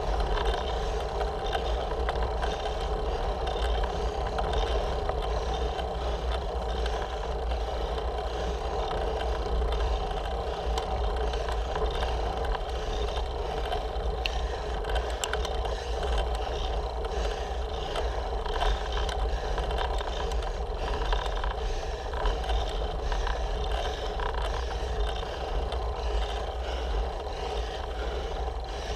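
Road bike riding along a sealed road, heard through a handlebar-mounted camera: a steady rumble of wind and tyre noise with small scattered rattles from the bars and mount.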